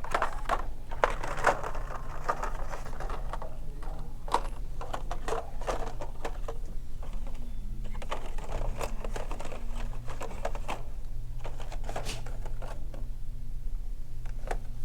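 Irregular clicking and clattering of plastic-packaged die-cast toy cars being handled and sorted through, over a steady low hum.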